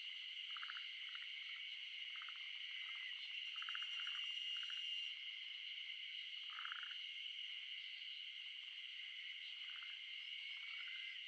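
A steady, high-pitched chorus of calling animals, with short rattling calls at a lower pitch standing out every half second to a second or so.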